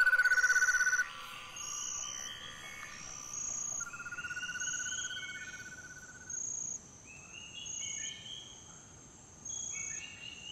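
Tropical rainforest insects calling: high, steady shrill notes repeating about once a second, over a lower pulsing buzz at the start and again about four seconds in, with short rising calls joining in later.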